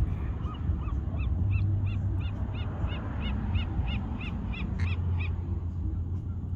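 A bird calling a rapid series of short, arched whistled notes, about three a second, for around five seconds, over a steady low rumble.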